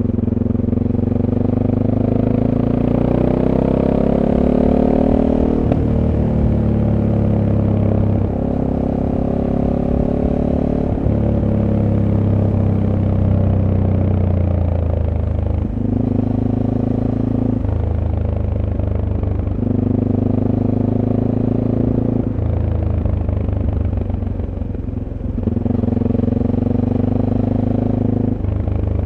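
SWM SuperDual T single-cylinder engine on its stock exhaust, heard from onboard while riding. The engine note climbs under throttle in the first few seconds, then drops and steps up and down several times as the throttle opens and closes and gears change through the curves.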